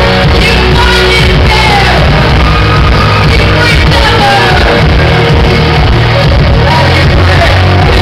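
Loud live concert music with a heavy bass and vocals, heard from the crowd.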